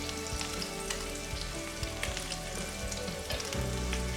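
Food sizzling in a hot frying pan, with sharp crackles and pops scattered throughout.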